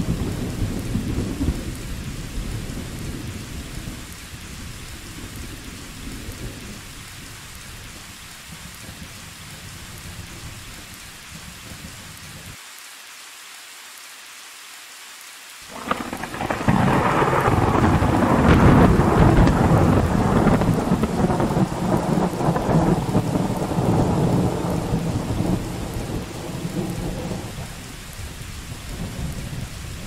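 Steady rain, with a low thunder rumble fading away over the first few seconds. About halfway through, a sudden loud thunderclap breaks into a long rolling rumble that dies down over roughly ten seconds.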